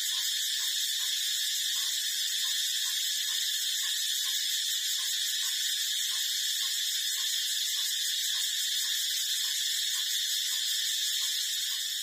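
A steady, high-pitched buzzing drone, with faint soft pulses about two to three times a second beneath it.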